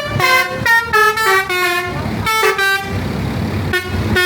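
Basuri telolet multi-tone air horn on a Tunggal Jaya bus playing a quick jingle of stepped notes, each held only a fraction of a second, in three short phrases with brief pauses between them.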